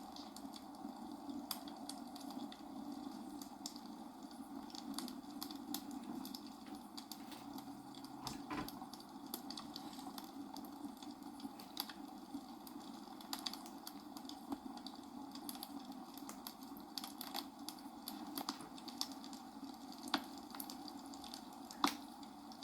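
Small plastic building bricks clicking and rattling as they are handled and pressed together, scattered irregular clicks over a steady background hiss, one sharper click near the end.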